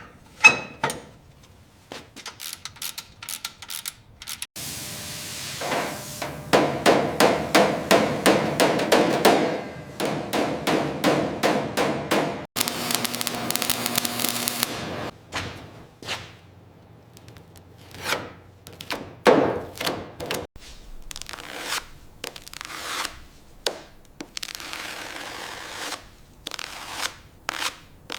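Workshop hammering: a string of sharp hammer blows, with a dense run of rapid strikes several times a second, broken by a short burst of hissing noise.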